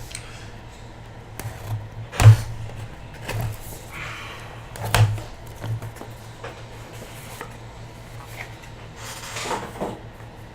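Trading card hobby box and its contents being handled and opened: scattered knocks, taps and rustles of cardboard and packaging. The sharpest knock comes about two seconds in, with another about five seconds in.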